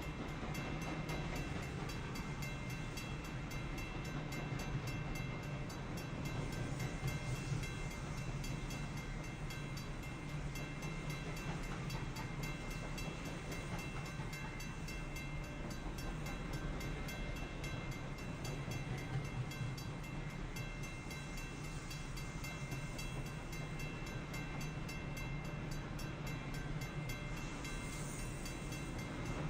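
Intermodal freight train rolling steadily through a grade crossing, a continuous low rumble, while the crossing's warning bell rings on and on in evenly spaced strokes.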